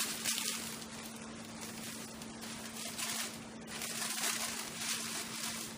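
Tissue paper rustling and crinkling as it is handled and bunched up, in several bursts.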